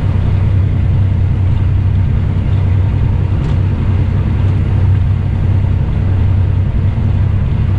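Semi-truck's diesel engine droning steadily at highway cruise, with road noise, heard from inside the cab.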